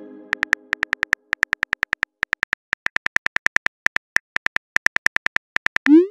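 Phone keyboard click sounds: rapid short taps in quick runs with brief pauses, as a message is typed out. A fading chime rings at the start, and a short rising swoosh comes near the end as the message is sent.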